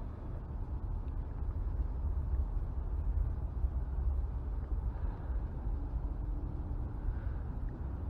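Wind buffeting a body-worn camera's microphone: a continuous, uneven low rumble with no distinct events.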